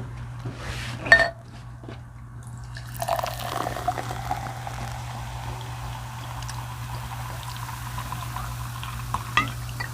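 Coke being poured into a glass: a steady pour that climbs slowly in pitch as the glass fills. A sharp click comes about a second in, before the pouring starts.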